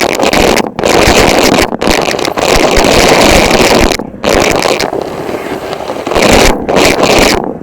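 Vacuum cleaner running loud and close, its steady rush of suction noise cutting out abruptly for a moment several times and turning duller for a second or so past the middle.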